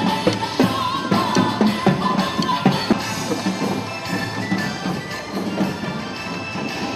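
Music with drums and sustained instrument tones, steady throughout.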